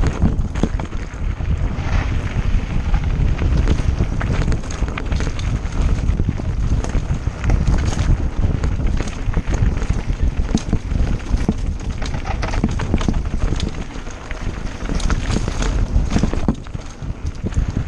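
Mountain bike riding fast down a dirt and gravel trail: tyres rolling and crunching on the loose surface, with the frame and drivetrain rattling and clicking over bumps, under heavy wind rumble on the microphone.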